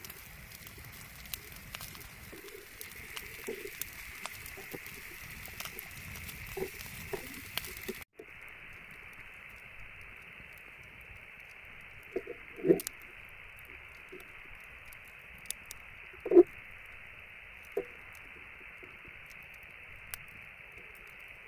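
Wood fire crackling with a steady hiss and scattered small pops, with a few louder sharp pops or knocks in the second half.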